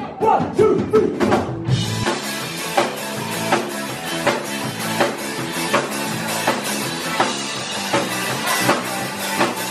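Live rock band playing: electric guitars, bass guitar and drum kit, with a steady drum beat.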